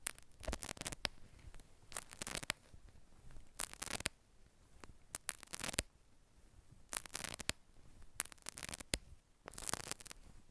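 Hairbrush bristles drawn through hair in slow, even strokes, each a short scratchy swish, about seven strokes with a pause of roughly a second between them.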